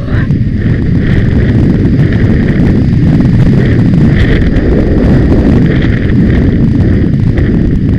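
Heavy wind buffeting on a rider's hat-mounted camera microphone during a gallop, a loud, steady low rumble.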